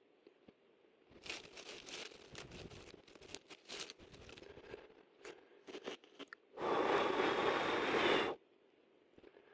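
Dry leaves, bark and twigs crunching and crackling as they are pushed into a smouldering campfire. About two-thirds of the way through comes one long, steady breath blown into the embers to get the fire going.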